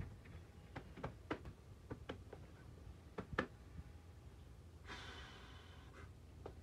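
A locked front door's knob being tried and rattled: a quick run of sharp clicks over the first few seconds. About five seconds in, a long sigh.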